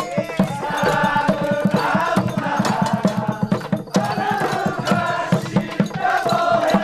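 Upbeat music with voices singing and a crowd clapping along to the beat.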